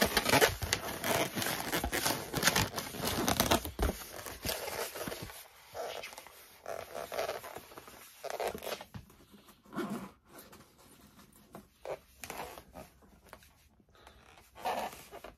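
Modelling balloons squeaking and rubbing against each other and against hands as they are twisted and wrapped. The squeaks come thick and fast for the first four seconds, then thin out into fainter, scattered handling sounds.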